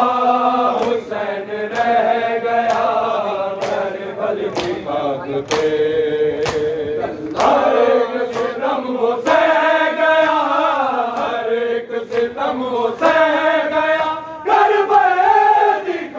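Men chanting a noha, a Shia mourning lament, together, with sharp hand-on-chest slaps of matam keeping a steady beat a little faster than one a second.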